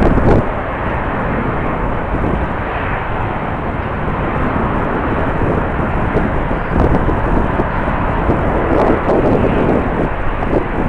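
Jet airliner engines running, mixed with strong gusty wind buffeting the microphone: a loud, steady noise that swells and eases throughout.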